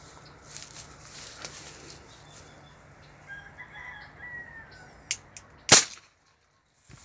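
A faint rooster crow in the middle, then two light clicks and a single loud, sharp shot from a long-barrelled gun just before six seconds in; the sound drops out for about a second after the shot.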